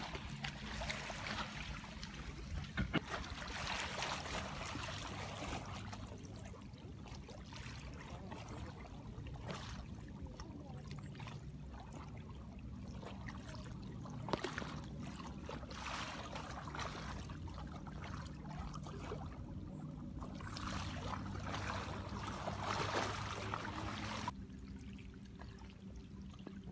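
Small waves lapping and splashing against a lakeshore, swelling and fading unevenly, with a faint steady low hum underneath; it gets quieter near the end.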